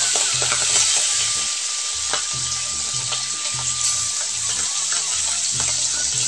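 Small whole fish sizzling in hot refined vegetable oil in a kadai, just after being put into the pan. A steady frying hiss runs with scattered crackles and pops.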